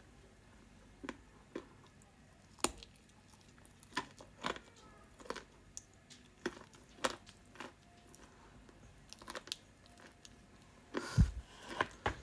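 Close-up chewing and crunching of edible amber clay in the mouth: irregular crisp crunches and clicks, one or two a second, with a louder burst of crunching near the end.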